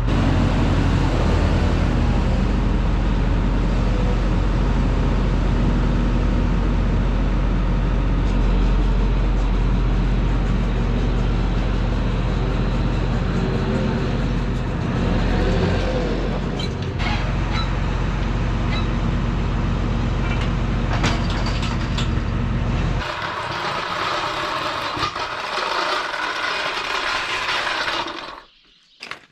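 Truck engine running steadily, with a few light clicks partway through. About 23 seconds in the engine sound stops, leaving several seconds of hissing before it cuts off.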